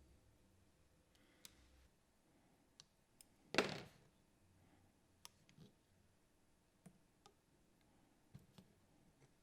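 Faint, scattered small clicks and taps of hands and tools working on a cassette recorder's tape mechanism, with one brief, louder rustling noise about three and a half seconds in.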